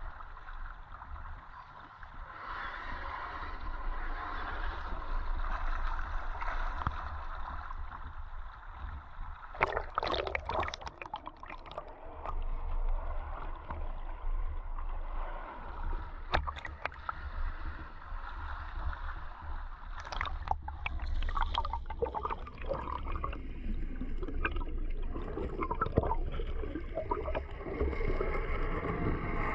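River water sloshing and gurgling around a camera at the surface as an RC crawler truck churns through the shallows, over a steady low rumble. Several sharper splashes cut in, the strongest about ten seconds in and again around twenty seconds.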